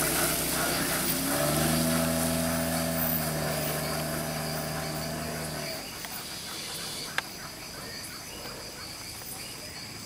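Toyota Cresta sedan pulling away down a dirt road, with a steady droning tone from the car that stops abruptly about six seconds in. Insects chirr steadily after that, with one sharp click.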